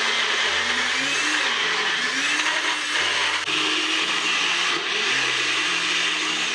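Electric blender running steadily at full speed, puréeing roasted root vegetables with stock into a thick soup.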